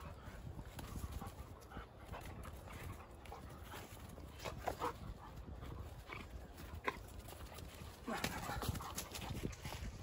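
German shepherd dog at play, giving a few short yips around the middle, with a louder stretch of movement noise near the end.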